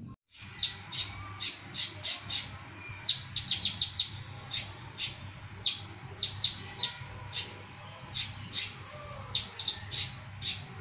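A konin songbird singing a fast series of sharp, loud, high chirps, each sweeping quickly downward, with some packed into rapid runs of several notes. This is the "tembakan" (shot-like) delivery of a bird in full song (gacor).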